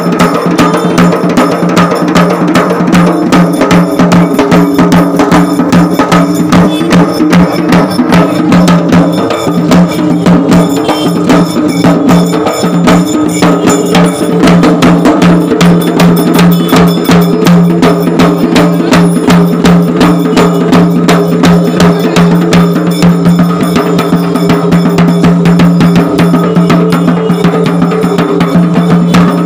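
Loud, fast percussion music: dense, rapid drum strokes over a steady held low drone, driving the dance.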